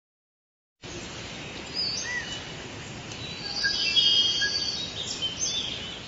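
Forest ambience: several birds chirping and whistling over a steady hiss, starting about a second in, busiest near the middle and fading at the end.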